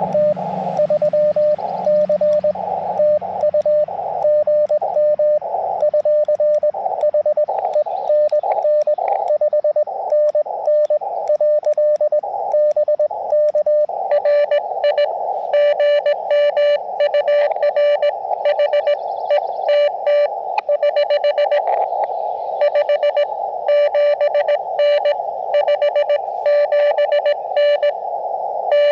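Morse code from an Elecraft KX2 transceiver: a single steady-pitched tone keyed on and off in dits and dahs over a narrow band of receiver hiss. About halfway through, the keyed tone turns brighter and denser.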